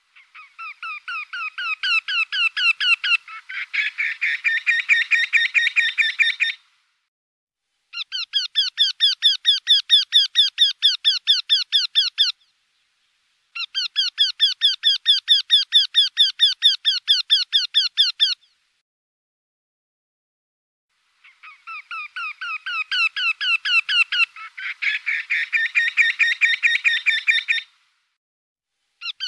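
Eurasian wryneck singing: four series of quickly repeated notes, each lasting a few seconds with short silences between, at about five notes a second. Each series grows louder as it goes. In the first and last series a second voice joins partway through.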